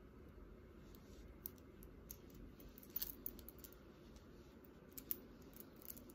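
Faint metallic clicks and jingles of a gold chain necklace with a padlock charm being handled and fastened, the sharpest clicks about three and five seconds in.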